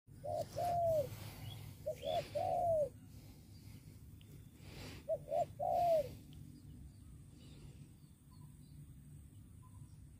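Spotted doves cooing: three short phrases of two or three rounded coos in the first six seconds, then only a few faint chirps from small birds.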